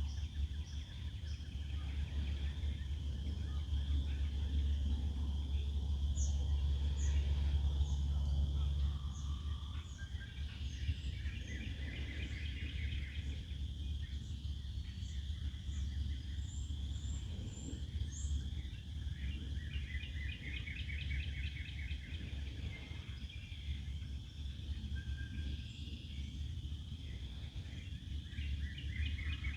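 Wild birds singing among trees: rapid trills several times, with short high chirps between them, over a steady low rumble.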